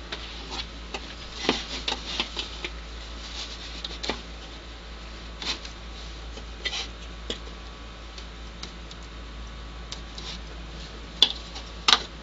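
Scattered light clicks and taps of hands pulling small backlight lamp wire plugs off an LCD panel and handling the monitor's plastic back housing, with two sharper clicks near the end. A low steady hum runs underneath.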